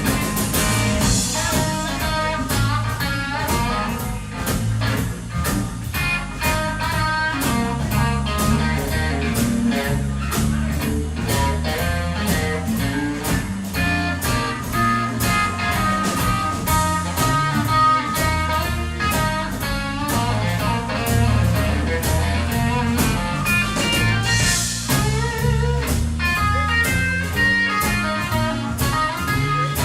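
Blues-rock band music: electric guitar playing lead over bass and drums with a steady beat.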